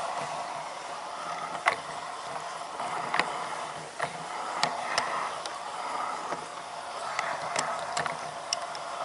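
Large-scale garden model train running on outdoor track: a steady whirr of wheels and motor, with sharp clicks now and then.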